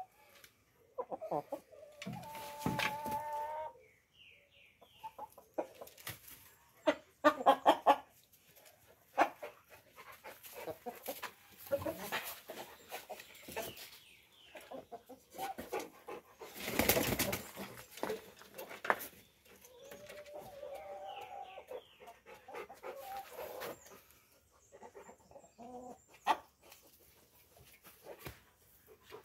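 Light Brahma chickens clucking and calling at intervals, with a few short, loud calls about seven seconds in. A louder rustling or knocking noise comes about halfway through.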